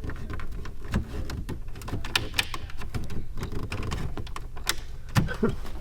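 Irregular light clicks and taps, with a few louder knocks, from plastic dashboard trim and screws being worked by hand.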